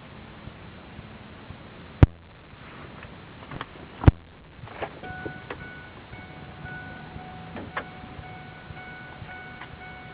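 Inside the cab of a Ford F-150 Lightning pickup: a low engine hum, two sharp loud clicks about two and four seconds in, then from about five seconds in a dashboard warning chime sounding in steady repeated beeps.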